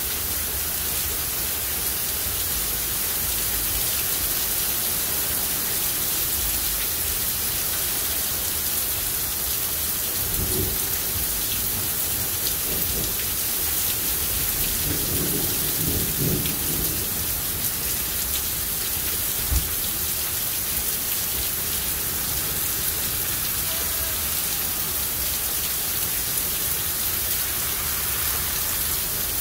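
Heavy rain pouring steadily onto a street, lawn and parked cars. Low rumbles of thunder come in about ten seconds in and again around the middle, followed shortly by a single sharp knock.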